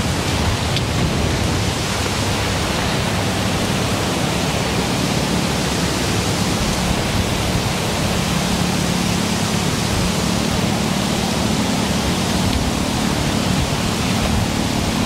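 Strong wind blowing through the trees and buffeting the microphone: a loud, steady rushing noise.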